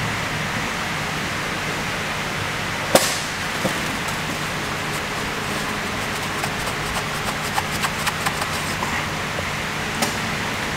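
Steady workshop fan hiss with a faint hum, over a small screwdriver wrapped in a rag being worked down inside a diesel injector bore to clean the injector seat: one sharp click about three seconds in, then a run of light ticks and clicks as the tool is twisted against the metal.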